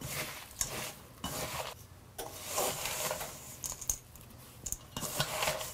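Wooden spoon stirring a damp mix of rolled oats and seeds in a stainless steel mixing bowl, with irregular scraping strokes and light taps against the metal sides.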